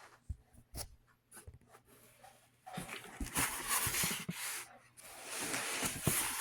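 Rustling and light clicks of objects being handled, louder from about three seconds in.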